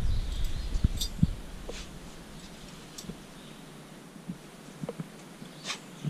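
Scattered light clicks and soft knocks of climbing-harness straps and buckles being handled, busier in the first two seconds and then only an occasional tick.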